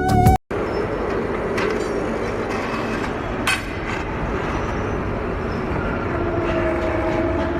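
Steady mechanical running noise with a few faint clicks and one sharper clank about three and a half seconds in, after background music cuts off just at the start.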